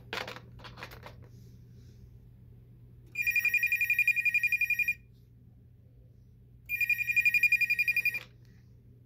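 Northwestern Bell trimline touch-tone phone's electronic ringer warbling twice, each ring a fast trill lasting about one and a half to two seconds with a pause between, rung by the homemade intercom. A couple of brief knocks come right at the start.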